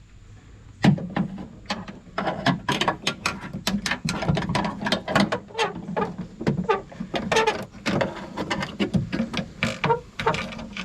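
Quick metallic clicking and rattling from about a second in: the rear door latch and its linkage rods on a 2001 Ford F-150 being worked by hand.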